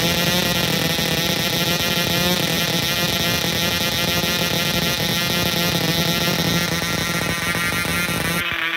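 Gordon Cornell Dynamic 060, a small single-cylinder two-stroke model diesel aero engine, running steadily at high speed on a test stand and swinging an 8x3 propeller, more or less fully run in. Near the end the sound turns suddenly muffled.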